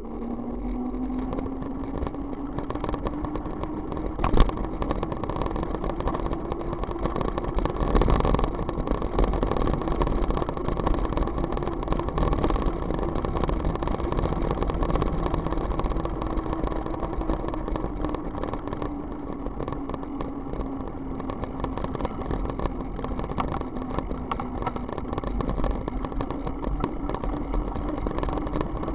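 Motor running steadily as the camera's vehicle travels along a road, its tone rising and falling gently with the speed, over wind and road noise. There is a sharp click about four seconds in and a louder bump about eight seconds in.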